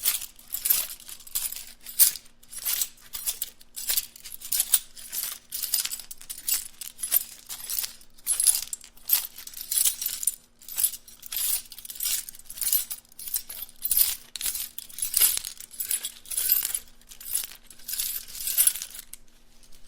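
Many small metal items shaken together, rattling and clinking in repeated bursts about twice a second.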